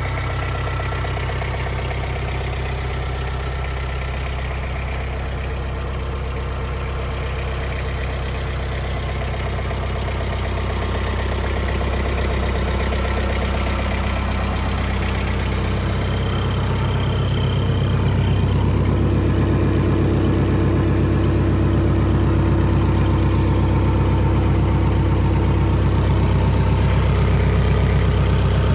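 Mitsubishi MT245 compact tractor's four-cylinder diesel engine idling steadily, getting louder in the second half.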